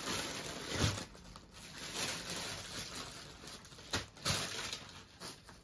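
Cloth rustling and crumpling as suit fabric is handled close to the microphone, with a couple of sharper knocks about a second in and near four seconds.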